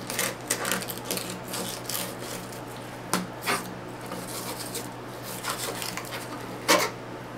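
Fillet knife sawing through a yellow perch's rib bones and scraping on a plastic cutting board: a string of short rasping strokes, with a few sharper knocks about three seconds in and again near the end.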